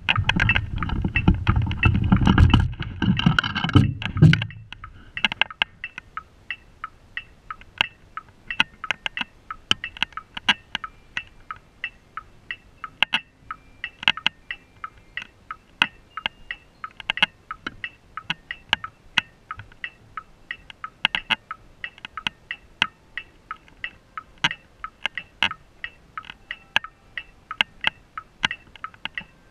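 Rumble and rattle of a camera mounted on a set of Yamaha marching tenor drums as the drums are handled, ending about four seconds in. After that comes a long run of sharp ticks, one to three a second and not quite regular, over a faint high tone.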